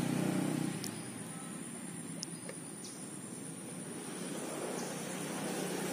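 Insects trilling steadily at a high pitch, with a few faint ticks.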